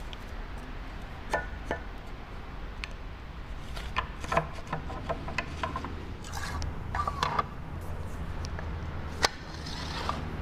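New vanes being slid by hand into the rotor slots of a Battioni rotary vane vacuum pump: scattered light clicks and clacks as the vanes knock against each other and the rotor, with some rubbing as they slide in, and one sharper knock near the end.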